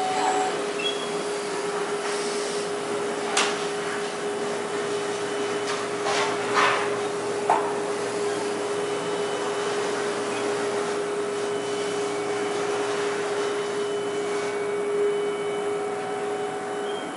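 A machine running steadily, a hum over a rushing hiss, broken by a few sharp knocks about 3, 6 and 7½ seconds in; the hum stops right at the end.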